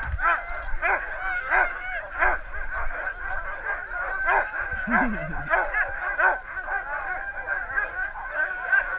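A chorus of many sled dogs barking and yipping over and over, with a steady high whine running under the barks. These are harnessed huskies at the sled, excited to go.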